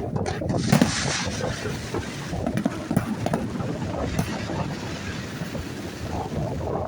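Fireworks going off over wind buffeting the microphone, with a sharp bang about a second in.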